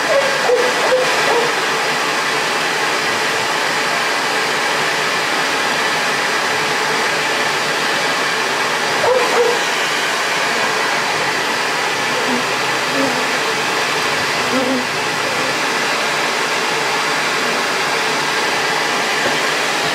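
Bee vacuum's motor running steadily, a constant rushing hiss with no break.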